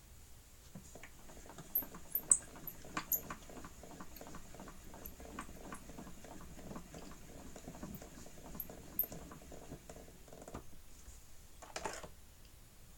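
Gramophone needle running in the lead-in groove of a shellac 78 rpm record: surface crackle with many irregular clicks and ticks, a few louder clicks about two to three seconds in, before the music starts.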